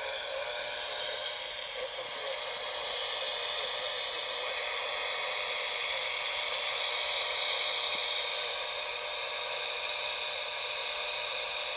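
Steady shortwave static hissing from a homebuilt cigar-box shortwave receiver built around an FU-25 (1625) vacuum tube.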